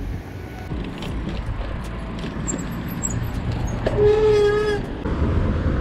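Wind buffeting the microphone over the low rumble of a bicycle rolling along a paved path. About four seconds in there is a short, steady tone lasting under a second.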